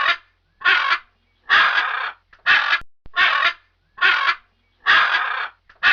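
Macaw squawking: a run of about eight harsh, raspy calls in quick succession.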